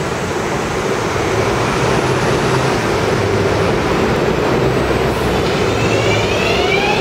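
R188 subway train standing at the platform with a steady hum from its equipment. About five and a half seconds in, its traction motors start a whine of several tones climbing together in pitch as the train begins to pull out.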